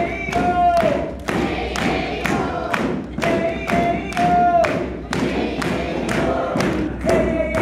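Percussion band drumming a steady beat. About every three and a half seconds a group of voices chants a repeated phrase on a held note, and the audience claps along.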